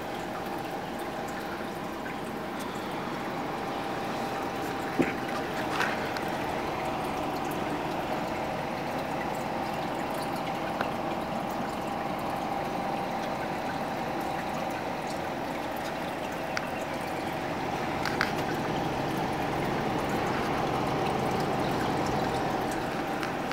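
Aquarium filter running: water trickles and pours steadily back into the tank over a faint steady hum. A few light clicks come through, about five and six seconds in and again later.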